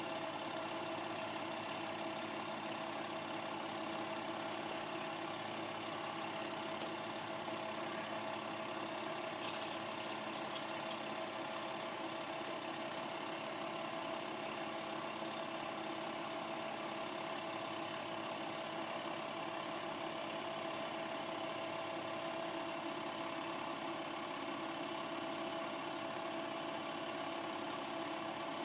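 Film projector running: a steady, rapid mechanical clatter from the film-advance mechanism, over a steady motor hum.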